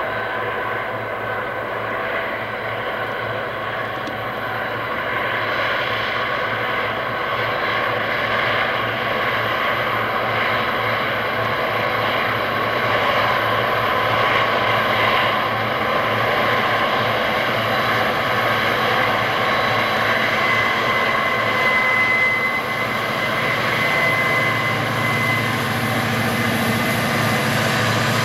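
Southern Pacific diesel freight locomotives working uphill, a steady engine drone that grows louder as they approach, with a deeper rumble near the end. A thin high whine sounds for a few seconds about two-thirds of the way through.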